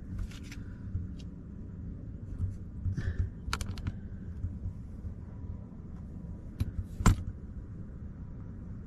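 Handling noise from a handheld OBD2 scan tablet: a few sharp clicks and taps, the loudest about seven seconds in, over a steady low rumble.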